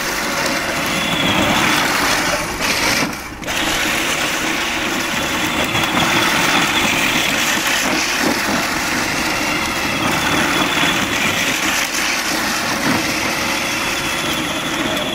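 Peg Perego battery-powered ride-on toy tractor, upgraded to 18 V, driving steadily: its electric drive motors and gearboxes run while the hard plastic wheels roll on concrete, with a brief drop in level about three seconds in.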